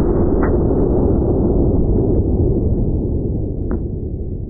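Rifle shot slowed down, as in a slow-motion replay: a long, low boom that fades gradually, with a faint click about half a second in and another near the end.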